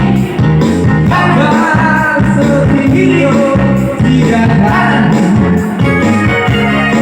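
Loud music with a singing voice and a heavy, steady bass line, played through a sound system being checked.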